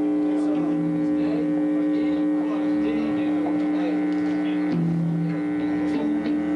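Guitar amplifier hum: a steady electric buzz from the band's amps and pedals, swelling briefly twice.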